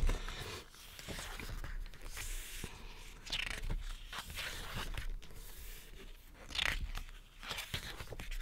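Pages of a photobook being turned by hand: paper rustling and sliding, with two louder page-turn swishes about three seconds apart.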